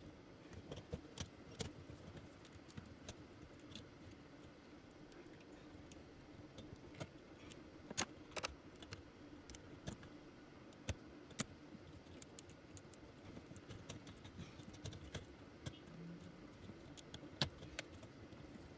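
Scattered light clicks and clatter of small parts and tools being handled during fuel pump work, over a faint steady hum.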